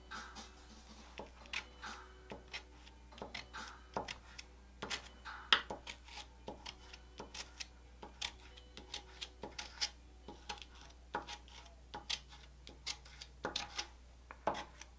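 Metal palette knife pressing, scraping and lifting thick wet gesso on drawing paper: irregular short scrapes and ticks, a few each second, over a steady low hum.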